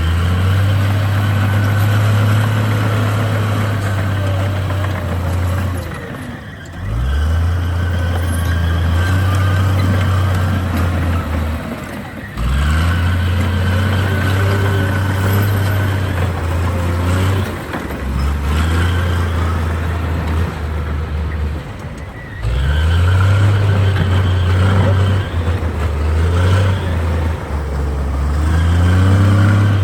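Bulldozer's diesel engine working under load in repeated cycles. It revs up, holds steady for several seconds, then drops briefly, about every five seconds.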